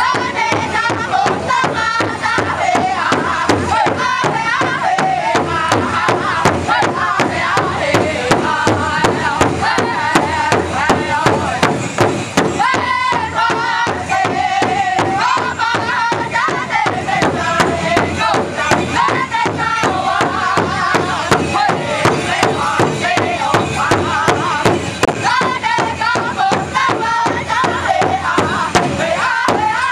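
Powwow drum group: several drummers strike one large shared powwow drum in a steady beat while young voices sing a powwow song in unison over it.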